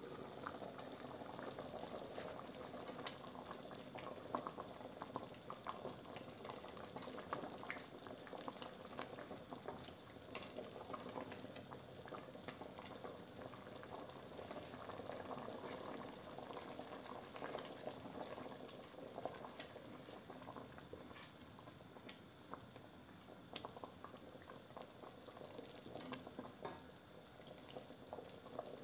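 Carrot and chicken soup bubbling at a steady boil in a stainless steel pot, with many small pops from bursting bubbles. A ladle stirs it now and then, adding a few sharper clicks.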